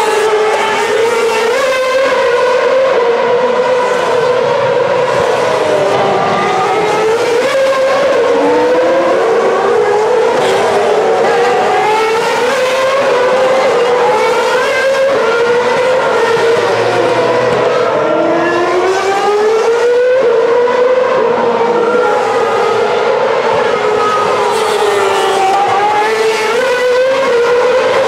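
2010 Formula One cars' 2.4-litre V8 engines at high revs, braking and accelerating past one after another. The overlapping engine notes keep rising and falling through the gear changes, and the sound never stops.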